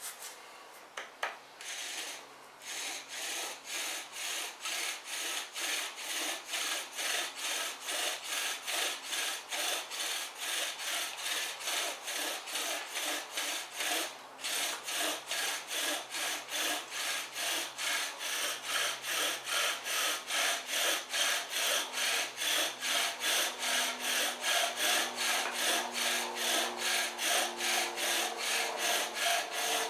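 Bow drill in use: a wooden spindle spun back and forth in a wooden hearth board by a weighted bow, drilling for an ember. It makes a rhythmic rasping of about two strokes a second, with a brief pause about 14 seconds in, and grows louder toward the end.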